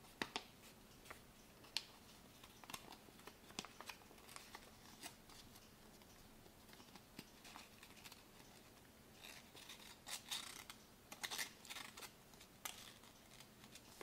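A sheet of origami paper is folded and creased by hand, giving scattered short, crisp paper crinkles and rustles. They bunch into a busier run of rustling about two-thirds of the way through.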